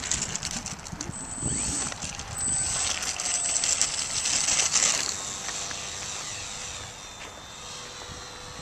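Small RC plane's Speed 400 brushless electric motor and propeller running up with a high whine as the plane takes off, then fading about five seconds in as it climbs away.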